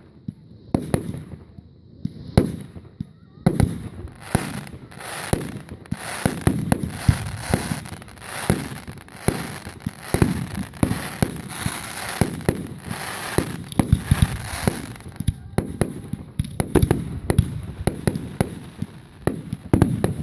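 Fireworks going off in a rapid run of sharp bangs and pops, densest through the middle, with a brief lull about three-quarters through before the bangs pick up again.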